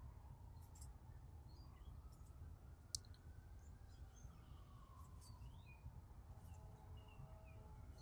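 Faint scattered clicks and crackles of dry leaf litter as an American robin forages through it, with one sharper click about three seconds in. Faint short chirps of other birds come and go.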